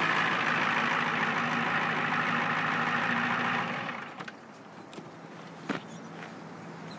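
Ford F-series pickup truck driving through snow, its engine and tyres loud and steady. About four seconds in it slows and stops, and the engine settles to a quieter idle.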